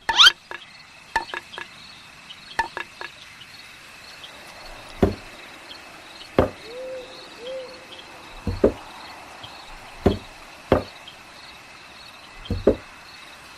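Six dull knocks a second or two apart, after a few lighter clicks in the first three seconds, over a steady high-pitched chirping. Two short low hoots sound midway.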